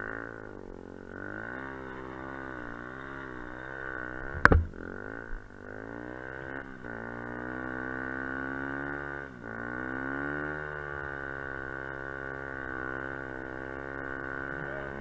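Dirt bike engine revving up and down while riding, its pitch rising and falling every second or two, then holding steadier near the end. A sharp knock sounds about four and a half seconds in.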